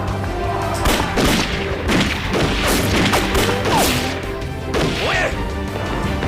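War-drama battle sound effects: a burst of gunshots and crashing impacts from about a second in until about five seconds, over background music.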